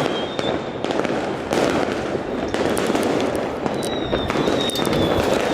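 Many fireworks going off at once: a dense, continuous crackle of bangs and pops with sharper cracks standing out. A thin high whistle, slowly falling in pitch, comes in near the end.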